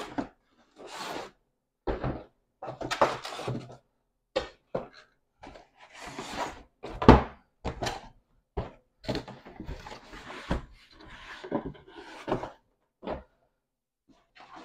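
Boxes and packaging handled during an unboxing: a run of knocks and thunks with stretches of rustling and scraping in between, the sharpest knock about seven seconds in.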